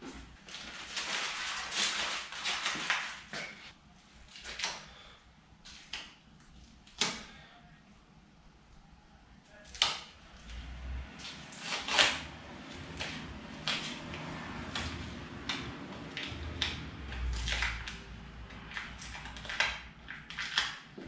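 Tape being peeled off painted sheet metal in the engine bay: irregular crackly tearing and clicks with occasional sharper knocks and a couple of low bumps.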